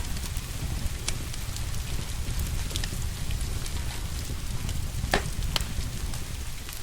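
Wood fire crackling in a fireplace, with scattered sharp pops, the loudest a little after five seconds, over a steady hiss of rain and a low rumble.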